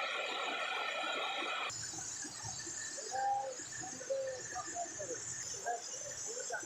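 Birds calling a few short cooing notes over a steady background hiss from a forest stream. The background changes abruptly a little under two seconds in.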